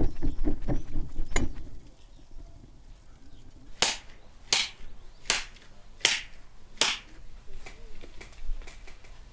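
Gloved hands slapping a ball of minced lamb back and forth to press it firm for lula kebab: five sharp, wet slaps, about one every three-quarters of a second.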